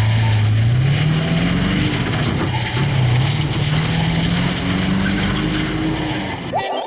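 Truck engine sound effect: the engine runs and revs, its pitch rising, dropping about two and a half seconds in and rising again, then cuts off near the end.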